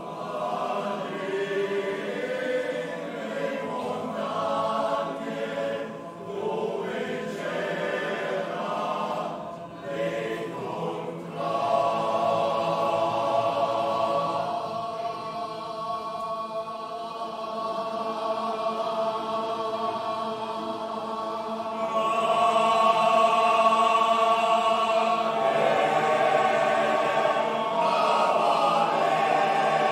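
Men's choir singing unaccompanied in several voice parts, holding sustained chords. It swells louder about a third of the way in and again about two-thirds through.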